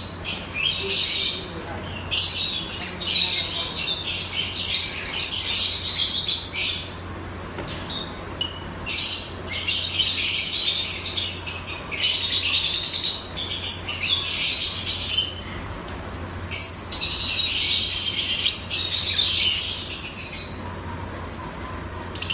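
Small pet parrots chattering and squawking in scratchy, high-pitched bursts of a second to several seconds, with short pauses between.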